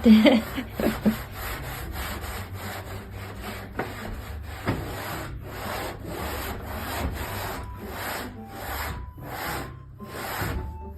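A brush rubbed back and forth in repeated strokes, about two to three a second.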